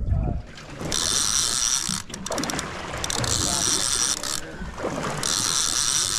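Fishing reel buzzing in three bursts of about a second each while a fish is fought on the line.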